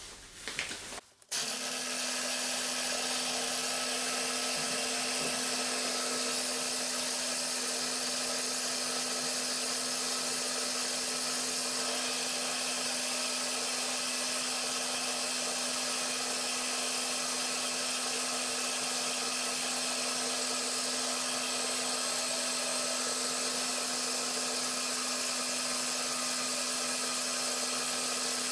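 Milling machine spindle running steadily with an even motor hum and no cutting, as an edge finder is used to find the work's centre.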